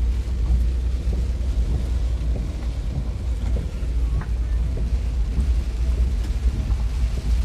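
Steady low rumble of a car heard from inside its cabin, with heavy rain beating on the car.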